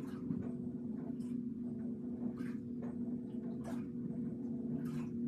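Steady low mechanical hum made of several constant tones, with a short crisp sound about every second or so.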